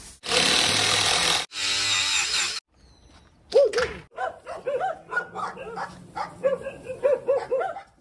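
A cordless drill runs in two bursts of about a second each, then several dogs bark in quick repeated short barks.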